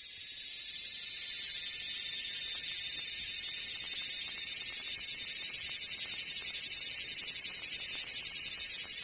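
Cicada song: a loud, steady, high-pitched buzz with a fast pulsing texture that swells up over the first couple of seconds and then holds.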